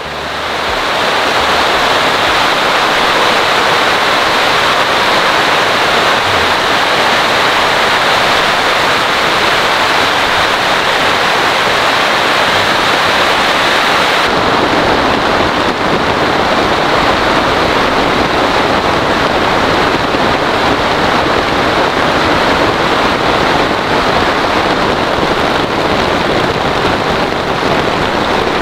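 Heavy rain pouring down in a steady, loud hiss. The sound shifts abruptly about halfway through, as from one shot of the downpour to another.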